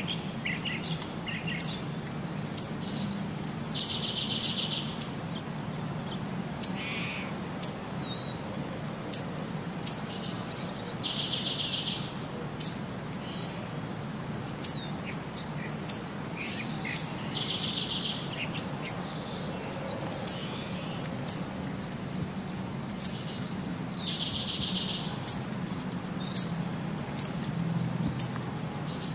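Birdsong ambience: short high chirps about once a second, with a longer trilled phrase that repeats about every seven seconds in the same form, like a loop, over a steady low hum.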